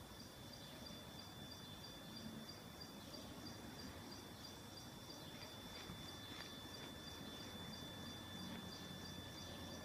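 Faint outdoor ambience: a steady high-pitched whine with a high chirp repeating evenly about three times a second, and a few faint ticks midway.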